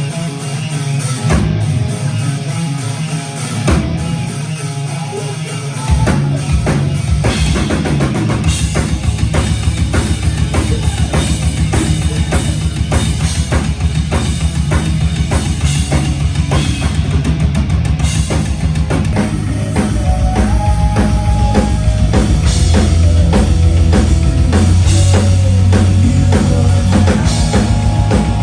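Rock band playing live: a drum kit keeps fast, dense beats under bass and electric guitar. The drums get going about six seconds in, and the bass gets heavier about twenty seconds in.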